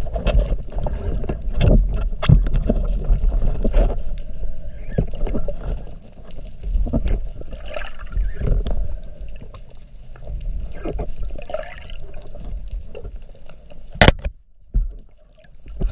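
Water sloshing and gurgling around a spearfisher's camera, with many small knocks and one sharp click near the end.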